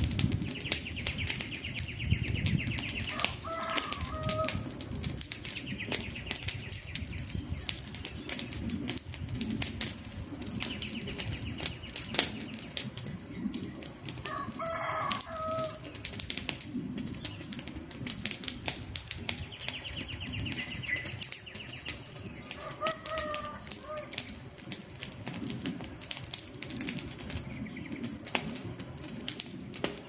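Wood campfire crackling, with frequent sharp pops over a low rushing burn. A bird calls three times in the background, about ten seconds apart.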